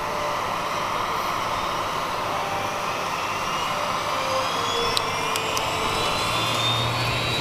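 Kawasaki T-4 jet trainer's twin turbofan engines running on the ramp: a steady jet hum with a thin whine that climbs in pitch from about halfway in, as the engines spool up before taxi. A few faint clicks about five seconds in.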